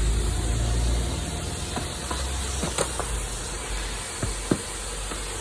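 Vacuum cleaner running, its nozzle drawing air with a steady hiss over a low hum, with a few sharp knocks as the nozzle touches the car's interior.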